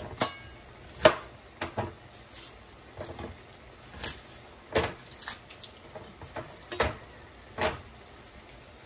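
Adobong clam sauce bubbling down in a stainless steel pan over a gas flame, with about a dozen sharp, irregular pops and spits as bubbles burst and oil spatters. The sauce is being reduced toward dry and has begun to release its oil.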